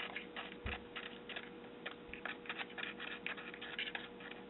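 Small plastic mixing stick stirring acrylic nail powder and glitter in a plastic compartment: faint, irregular scratching with light ticks against the plastic.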